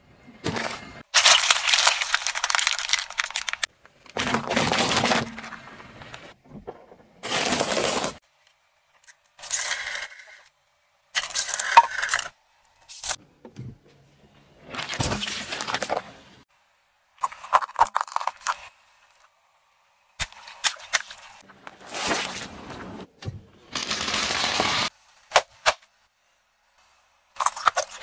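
A car tyre rolling over and crushing objects one after another, heard as a string of about a dozen short cracking, crunching and popping sounds. Each lasts a second or two and is cut off abruptly, with silent gaps between them.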